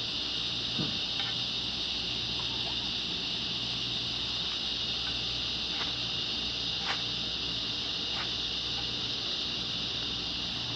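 Electric fan blowing steadily with a low hum, plus a handful of short, sharp scrapes of a striker on a flint fire-starter rod, a second or more apart, throwing sparks onto magnesium shavings.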